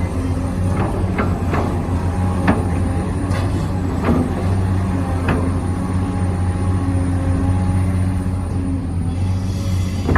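Radio-controlled construction model running with a steady low motor hum, with several short sharp clacks in the first few seconds.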